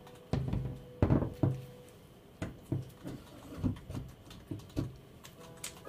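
Irregular knocks and clicks of metal parts being handled and fitted together on a queen-bee artificial insemination instrument, about ten over several seconds, the loudest around one second in.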